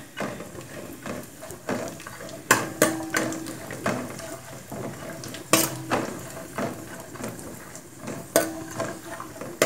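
A metal spoon scraping and clinking against a steel pan at irregular moments while stirring cashew nuts frying in it, over a faint sizzle.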